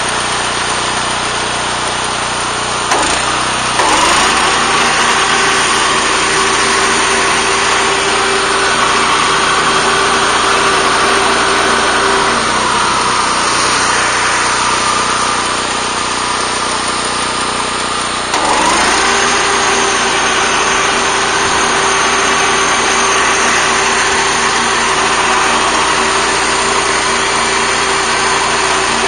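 BCS walk-behind tractor's gas engine running steadily while driving a Zanon 40-inch finish mower through grass on a slope. The engine note dips and climbs back about three seconds in, and again about two-thirds of the way through.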